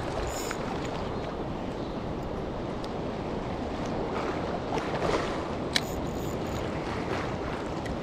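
Strong wind and sea waves: a steady rushing noise, with one sharp click about two-thirds of the way through.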